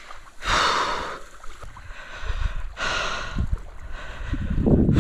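A man breathing heavily and sighing: three long, noisy exhalations about two seconds apart.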